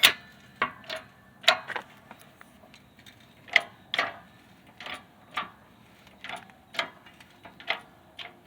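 Press being worked to force new wheel studs into a drum brake hub: a run of sharp metallic clicks at an uneven pace, about one or two a second.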